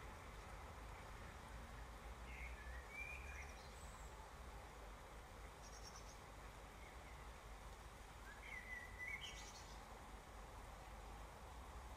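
Steady, faint rain falling on a wet street and grass, with a low rumble underneath. A small bird chirps a few times: short calls about two seconds in and again about eight and a half seconds in, with brief high twitters between.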